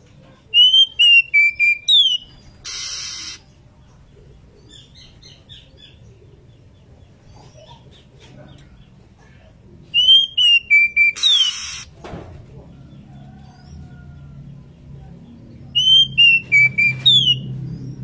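Female Oriental magpie-robin calling in breeding condition: a loud phrase of clear whistled notes, falling and then rising sharply, given three times. A short harsh rasp follows the first two phrases.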